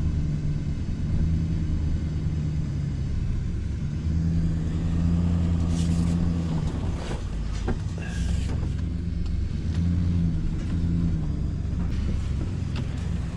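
Three-quarter-ton Chevy pickup's engine running at low speed, heard from inside the cab as the truck creeps along a dirt trail. The engine note swells twice as the throttle opens, and a few brief knocks and rattles come around the middle.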